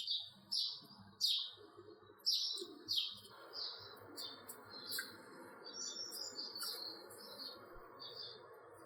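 House sparrow chirping: a run of short, repeated chirps, about two a second, loudest over the first three seconds and then quicker and softer, with a low hum of background noise setting in about three seconds in.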